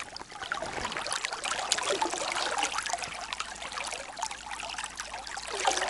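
Fast shallow river current trickling and lapping close to the microphone, with many small splashes.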